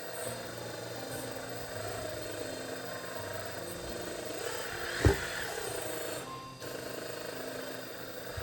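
Hydraulic pump of a 1/14-scale RC excavator running with a steady whine as the machine works its metal gripper. A single sharp knock about five seconds in is the loudest sound.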